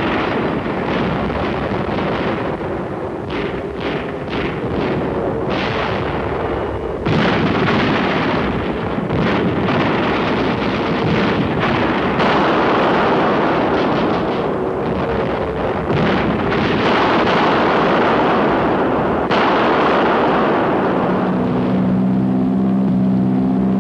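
Battle sound effects: a continuous rumble of explosions and gunfire, with a run of sharp reports in the first few seconds. Near the end, the steady drone of a propeller aircraft's piston engine comes in.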